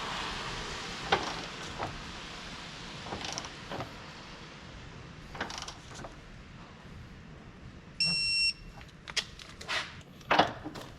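Scattered metallic clicks and clanks of hand tools on car suspension parts, with one short high electronic beep about eight seconds in.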